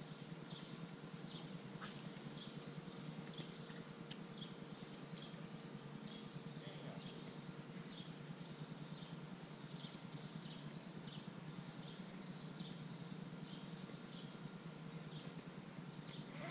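Faint high chirps repeated about twice a second, a small animal's call, over a low steady hum.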